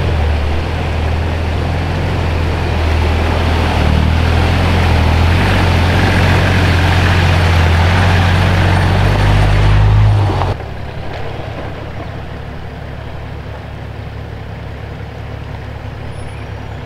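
A four-wheel drive driving along, its engine droning low with a rushing haze of road noise. About ten seconds in, the sound drops suddenly to a quieter, steady drone.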